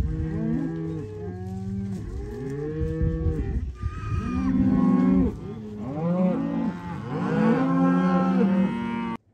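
A herd of cattle, cows and calves, mooing continuously, many calls overlapping one another at different pitches. The sound cuts off abruptly near the end.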